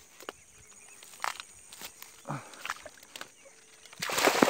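A few sparse rustles and snaps of marsh weeds, then about four seconds in a loud burst of splashing as an arrow-shot tilapia thrashes in the shallow water while it is hauled in through the vegetation.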